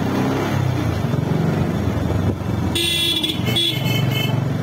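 Motorcycle engine running steadily on the move, with a vehicle horn sounding twice in quick succession about three seconds in, each blast under a second.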